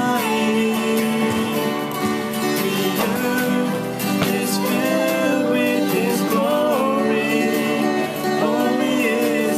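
Acoustic guitars strummed while a man sings along.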